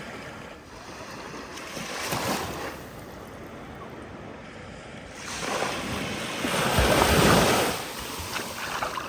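Ocean waves breaking: a smaller wave washes in about two seconds in, then a bigger wave builds and crashes, loudest near the end.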